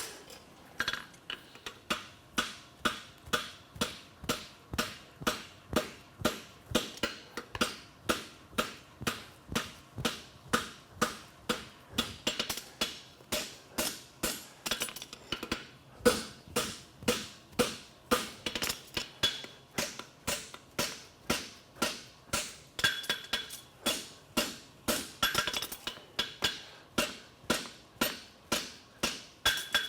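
Farrier's hammer striking hot steel bar stock on an anvil in a steady rhythm of about two to three blows a second, each strike short with a brief metallic ring, while forging a horseshoe.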